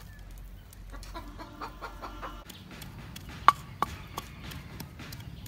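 Chickens clucking for the first couple of seconds. Then a wooden pestle pounds in a clay mortar: sharp knocks about three a second, one much louder than the rest near the middle.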